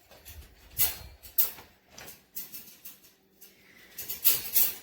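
A dog moving about in a folding wire dog crate: irregular scuffs and light rattles of the metal crate, loudest about a second in and again near the end.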